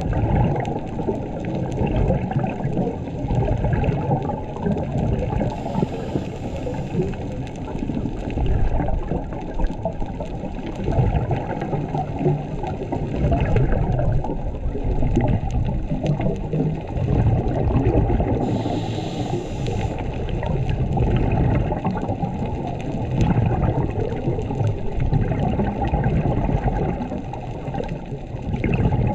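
Muffled underwater rumble and gurgling of scuba bubbles, swelling and fading every few seconds, with two brief hisses about six and nineteen seconds in.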